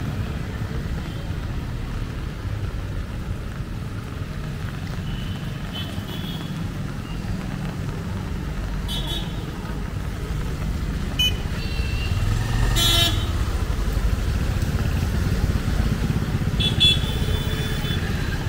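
Street traffic of motorcycles and auto-rickshaws running past on a wet road, with a constant engine rumble. Several short horn toots sound over it, the loudest about two-thirds of the way in.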